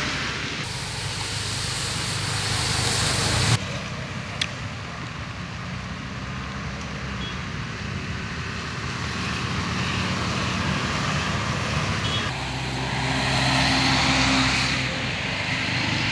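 Motorcycles passing on a wet road: engines running and tyres hissing on the wet tarmac. The sound changes abruptly a few times where the recording is cut, and one pass grows louder about thirteen seconds in.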